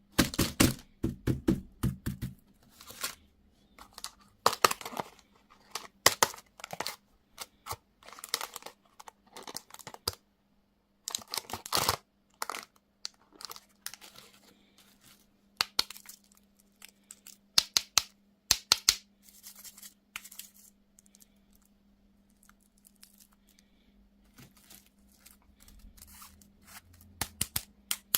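Candy and toy packaging being torn open and crinkled by hand, in irregular crackling bursts that thin out after the middle, over a faint steady low hum.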